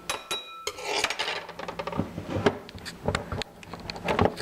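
A knife scraping and clicking against a dish as rice is fluffed up with it, in a quick run of small knocks and scrapes.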